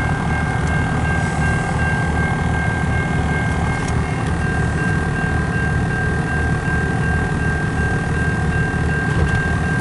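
Car engine idling, heard from inside the cabin: a steady low rumble with a steady high-pitched whine over it.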